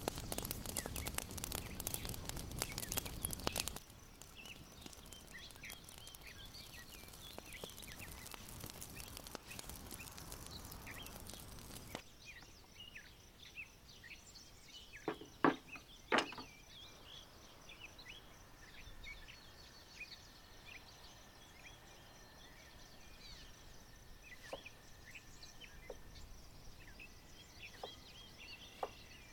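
Small birds chirping off and on. A dense crackling noise fills the first few seconds, and two sharp knocks come about fifteen and sixteen seconds in.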